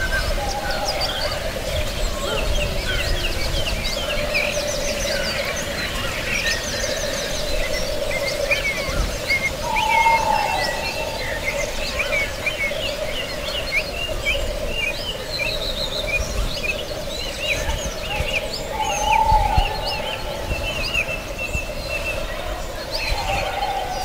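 Forest ambience of many small birds chirping and singing continuously over a steady low drone. A louder, short call drops in pitch about ten seconds in and again near nineteen seconds.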